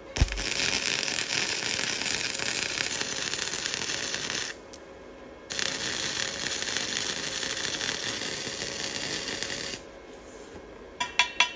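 Welding arc from a small Harbor Freight 125 wire-feed welder crackling steadily as beads are laid on exhaust tubing, in two runs of about four seconds each with a one-second break between them. Near the end, a few sharp metallic clicks.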